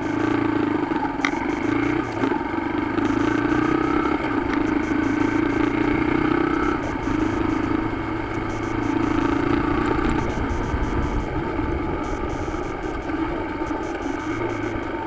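Motorcycle engine and road noise as the bike pulls away from a stop and rides on, jumping up sharply at the start and then holding steady.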